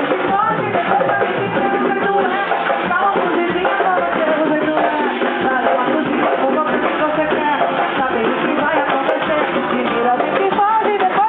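Live music from a percussion group: drums played under voices singing, dense and continuous.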